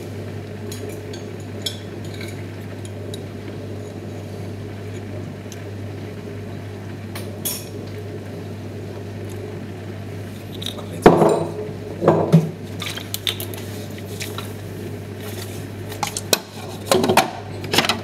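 Clinks and knocks of dishes and cutlery being handled, with two loud clattering bursts about eleven and twelve seconds in and several more near the end, over a steady low hum.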